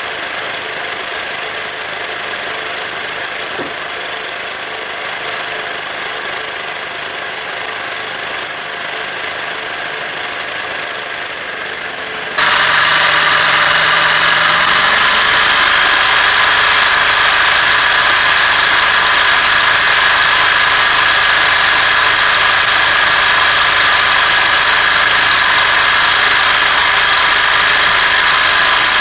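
A scrapped sewing machine's motor running steadily, overvolted from a transformer, with a whine and rattle. About twelve seconds in it jumps suddenly louder and shriller, and it stays at that level.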